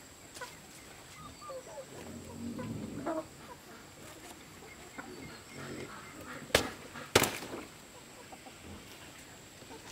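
Two sharp chops about half a second apart, a machete cutting a banana leaf from the plant, over chickens clucking.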